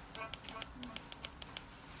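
Handheld pulse oximeter's keypad pressed repeatedly to turn the key-tone volume down: a short key beep near the start, then a quick run of button clicks, about five a second.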